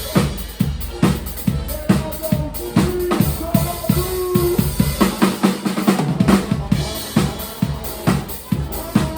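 Live band playing, led by a drum kit keeping a steady beat of kick and snare hits under held instrument notes; the low bass drops away for a moment about five seconds in.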